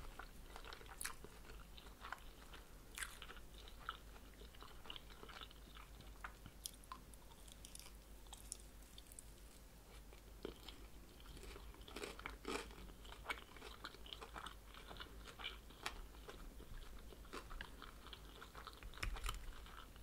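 Close-miked chewing of oven-baked vegetable-and-chicken spring rolls: soft crunches and small wet mouth clicks at an uneven pace. The rolls have lost some of their crispness since baking.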